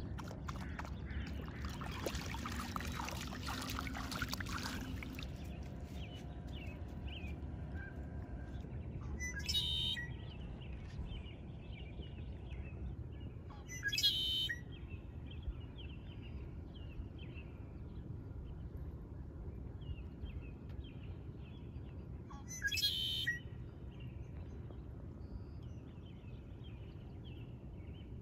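A dog lapping water from a lake for the first few seconds. Then a male red-winged blackbird sings three times, each a short buzzy trill several seconds apart, with faint chirps of other small birds between.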